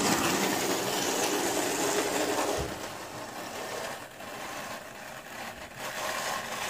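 Small electric motor of an old model train locomotive whirring as it strains to pull carriages up a grade, its wheels struggling for grip. The whir drops in level about two and a half seconds in and picks up again near the end.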